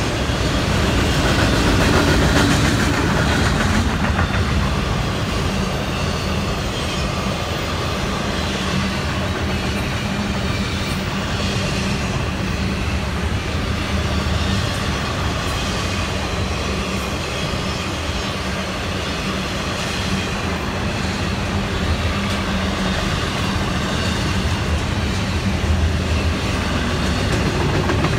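Florida East Coast Railway intermodal freight train's double-stack container well cars and trailer flatcars rolling past: a steady noise of steel wheels running on the rails.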